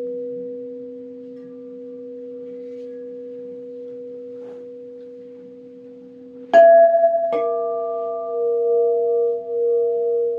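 Crystal singing bowls ringing with steady, pure tones that slowly fade. About two-thirds of the way in, two more bowls are struck less than a second apart, and their new tones ring on with a slow pulsing waver.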